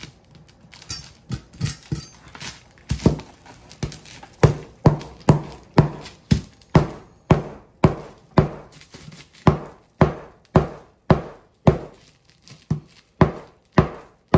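A large kitchen knife chopping down again and again into a hard Moroccan sugar loaf wrapped in paper on a countertop. Each blow is a sharp thud, about one and a half a second, light and uneven at first and strong and regular from about three seconds in.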